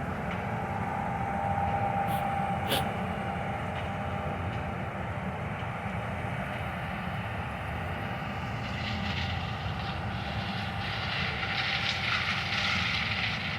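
John Deere combine harvester running steadily as it moves across the field, a low even rumble with a faint whine in the first few seconds. Two sharp clicks come a little after two seconds, and a hiss swells up from about nine seconds in.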